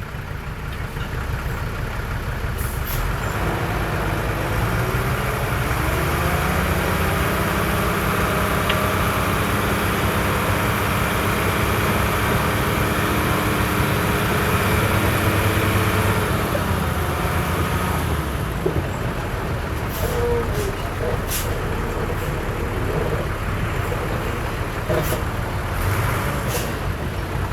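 Heavy diesel engine of earthmoving machinery working: the engine note rises a few seconds in and holds under load through the middle, then eases off. A few sharp clanks follow near the end.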